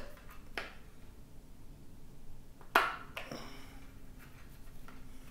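A few small plastic clicks and taps as a Pinlock anti-fog insert lens is flexed and seated onto the pins of a motorcycle helmet visor, the sharpest click a little under three seconds in.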